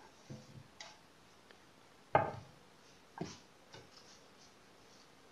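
A few irregular knocks and taps of a kitchen knife on a wooden cutting board, the loudest about two seconds in.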